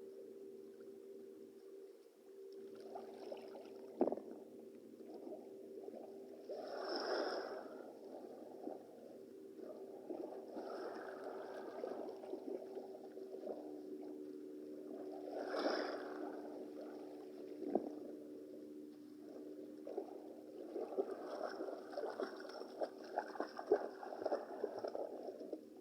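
Sea water splashing and sloshing in surges a few seconds apart, over a steady low hum, with a run of small crackling splashes near the end.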